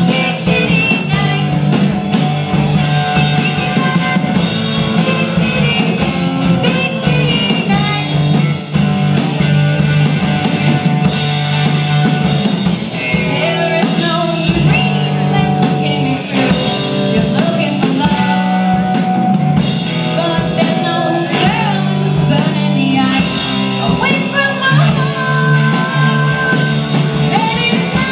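Live rock band playing a song: a woman singing lead over electric guitars, acoustic guitar and a drum kit.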